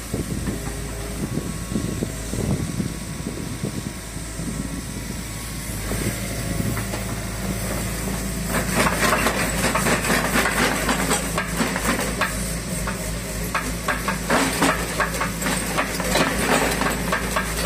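Kobelco mini excavator's diesel engine running steadily while its grapple arm swings a sack of rubbish over a dump truck. From about halfway a dense clatter of knocks and rattles joins in.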